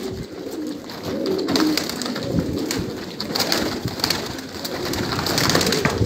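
Domestic pigeons cooing in a loft, with scattered sharp clicks in between.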